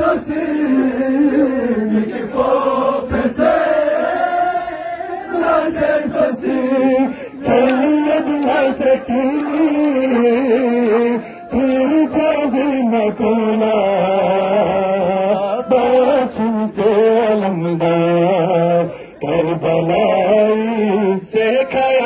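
A crowd of men chanting a noha (Shia mourning lament) together in a slow melodic line, with brief breaks between phrases and now and then sharp slaps of hands on chests.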